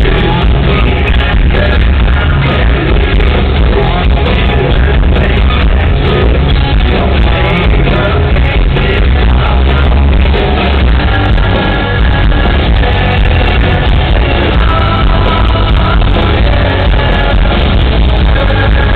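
Live hard rock band playing loud, with singing over the band.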